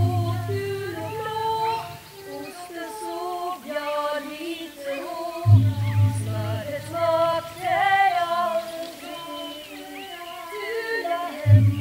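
Wordless female singing in several overlapping voices, a slow drifting melody. Underneath, a low drone note sounds for a couple of seconds at the start, again about halfway through, and comes back at the very end.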